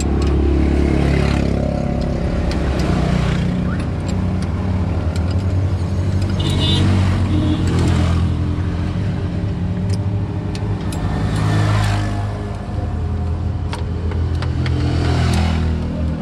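Diesel truck engine running with its revs rising and falling every few seconds, with a few sharp metallic clicks of tools on the engine.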